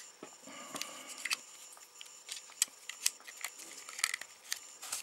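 Irregular small clicks and scrapes from handling a Nokia 1100 mobile phone's plastic body, sliding a SIM card into its metal holder.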